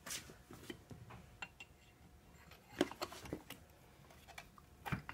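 Scattered light metallic clicks and clinks of a steel punch being picked up and set against the oil pump in the transmission's bell housing, with a cluster of louder taps near the middle.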